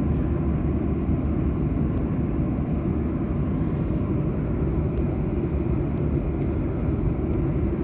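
Steady cabin noise of a Boeing 737-800 in cruise: an even, low rumble of engine and airflow noise with no change in level.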